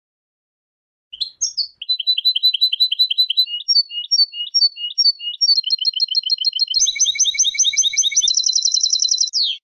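A European goldfinch singing, high and clear. The song is a run of repeated phrases that starts about a second in, speeds up into fast trills, and ends on a falling note that cuts off suddenly.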